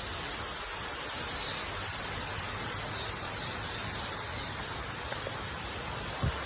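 Steady background hiss with a faint low rumble and no distinct sound event; a short soft thump near the end.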